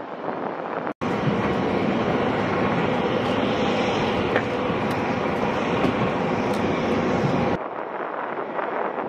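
Steady, loud noise of an MV-22 Osprey tiltrotor running on the ground, starting abruptly about a second in and cutting off abruptly near the end. Before and after it, wind buffets the microphone.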